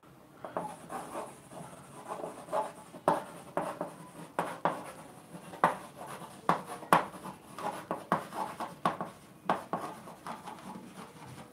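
Chalk writing on a blackboard: irregular taps and short scratching strokes as words are written out.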